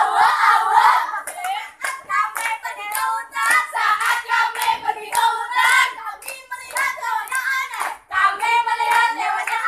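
A group of girls chanting a scout yel-yel, a rhythmic sung cheer, in unison, with hand claps.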